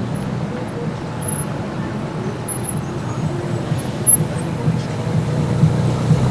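Low engine rumble of a car in city street traffic, getting slightly louder toward the end.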